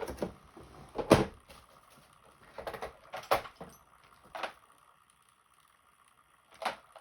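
Snap ring pliers and other small metal hand tools being handled and worked on at a desk: a handful of separate sharp clacks and knocks, the loudest about a second in, then a quiet stretch before a last pair of clicks near the end.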